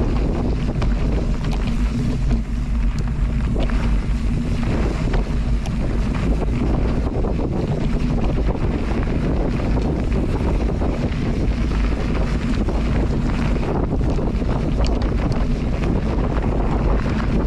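Wind buffeting a moving camera's microphone: a loud, steady low rush with scattered small knocks.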